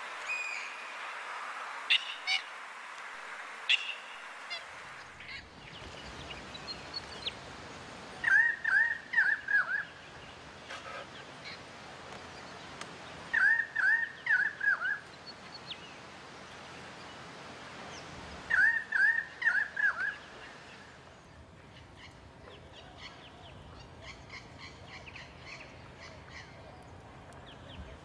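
Chestnut teal calling: a quick run of five or six short calls, given three times about five seconds apart. A few thin, higher bird chirps sound in the first seconds.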